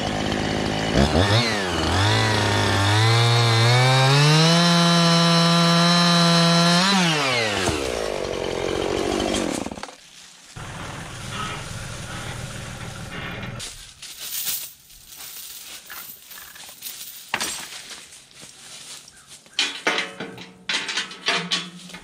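Two-stroke Husqvarna chainsaw revving up about a second in and running at full throttle through a small elm sapling, then dropping back about seven seconds in. After that come lower, uneven noises with scattered knocks and rattles.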